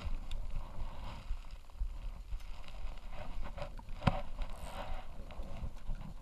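Wind rumbling on the microphone, with clothing rustle and scattered light clicks as a spinning rod and reel are handled, and one sharper click about four seconds in.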